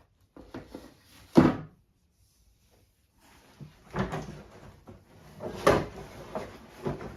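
Handling noise of large animatronic parts being put down and picked up: a sharp knock about a second and a half in, then a run of knocks and rustling from about four to six seconds in.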